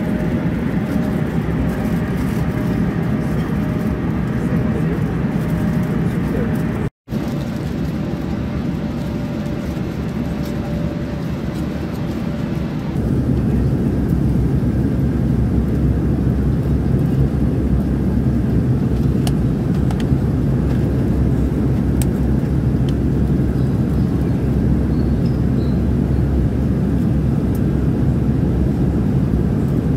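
Steady cabin noise of an Embraer E195-E2 airliner in flight: a broad rumble of airflow and its Pratt & Whitney PW1900G geared turbofan engines. It drops out for an instant about seven seconds in, and about thirteen seconds in it changes to a louder, deeper rumble.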